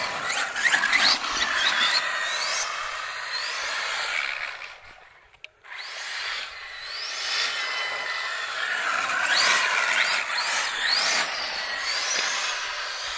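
Electric motor of a 1/7-scale 4WD RC car whining in quick rising and falling sweeps as the throttle is worked, over a steady rushing noise of tyres on asphalt; the sound drops away briefly about five seconds in, then picks up again.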